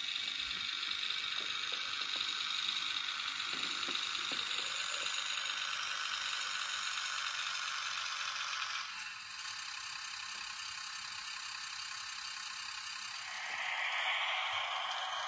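N-gauge model train running along the track: a steady mechanical rattle from the wheels on the rails and the small motor. The sound shifts abruptly about nine seconds in and grows louder again near the end.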